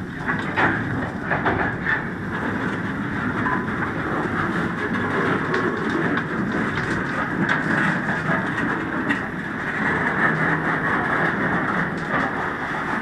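Freight hopper cars rolling past at close range: a steady rumble of steel wheels on rail, with a few sharp clanks in the first couple of seconds.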